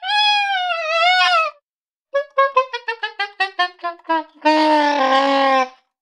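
High-pitched cartoon-character laugh sound effects. A drawn-out squealing note stops about a second and a half in. After a short pause comes a quick run of about a dozen clipped notes stepping down in pitch, then a held, raspy lower note that ends near the end.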